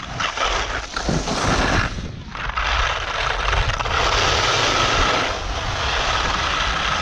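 Skis hissing and scraping over firm, wind-packed snow on a downhill run, with wind rumbling on the microphone. There is a short lull about two seconds in, then a steadier, louder scrape.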